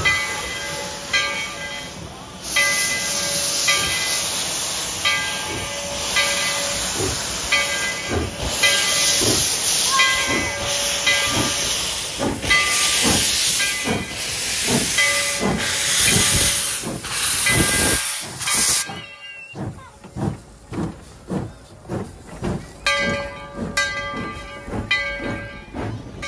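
A steam locomotive working, its exhaust chuffing at about two beats a second under loud steam hiss, with a bell-like ringing repeating about once a second. The hiss drops away abruptly about three-quarters of the way through while the chuffing and ringing go on.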